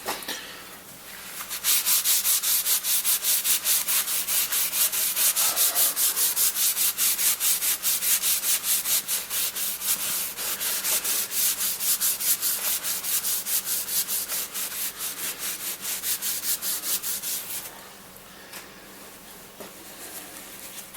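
Rapid back-and-forth scrubbing of the oil-stained paintwork of a Boxford lathe with a kitchen cleaner that holds a mild abrasive, about three to four strokes a second. It starts a second or two in and stops a few seconds before the end.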